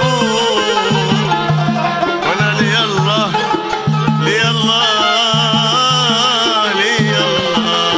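Yemeni folk song music: an instrumental passage with a wavering melody over a steady, pulsing beat.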